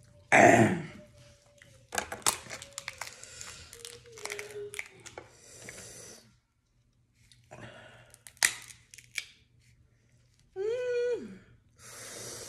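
Sauce-coated seafood shells being cracked and peeled apart with gloved hands: a run of sharp crackling snaps and wet tearing. It also holds a short sliding mouth sound right at the start and a brief hummed "mm" near the end.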